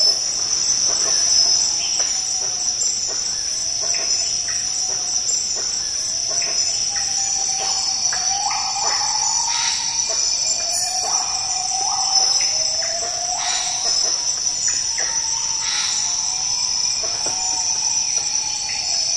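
Rainforest insects droning steadily at a high pitch. From a few seconds in, an unseen animal gives a series of rising hoot-like calls about once a second, which fade near the end.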